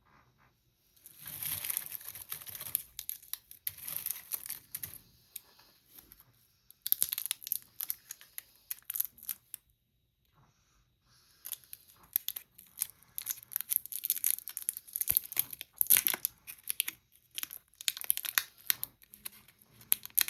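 Candy wrappers being torn open and crinkled, in three spells of crackling with short pauses between; the last spell is the longest.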